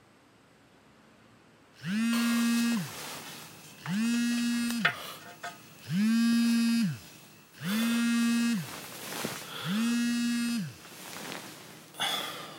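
Mobile phone vibrating with an incoming call: five buzzes of about a second each, two seconds apart, each spinning up in pitch as it starts and winding down as it stops. A short rustle follows near the end as the phone is picked up.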